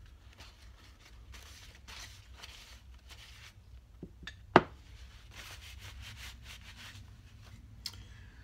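A cloth wipe rubbing over the steel connecting rods of a BSA A70L Lightning crankshaft as they are cleaned, in soft intermittent swishes over a steady low hum. A sharp click comes about halfway through.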